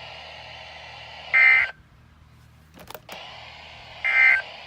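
Emergency Alert System end-of-message data bursts on weather radio: two short, buzzy digital tone bursts about two and a half seconds apart over steady radio hiss. The hiss drops out briefly between them, with a few clicks as it returns.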